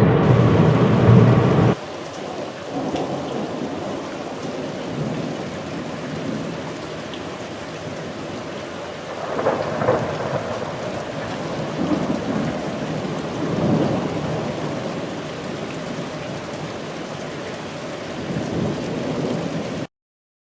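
A louder low sound cuts off abruptly about two seconds in, giving way to steady rain with rumbles of thunder swelling a few times; it all stops abruptly near the end.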